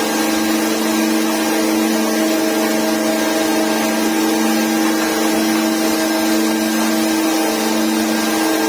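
Hydraulic rock drill on a tunnel drilling jumbo boring into the rock face: a loud, steady machine noise with a constant hum under it.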